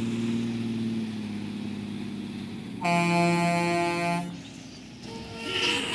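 Heavy tractor-trailer truck's diesel engine running low and steady, then a truck air horn sounds once, loud and steady, for about a second and a half nearly three seconds in.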